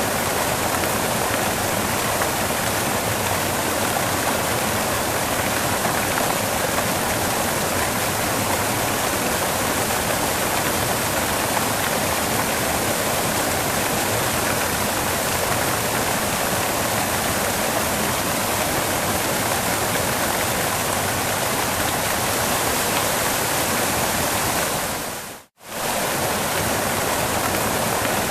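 Waterfall: steady, dense rush of falling water. It cuts out for a split second about three seconds before the end and then comes straight back.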